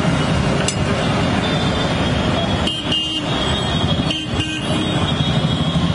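Steady road traffic noise with two short vehicle horn toots, one about three seconds in and another about a second later. A short click comes under a second in.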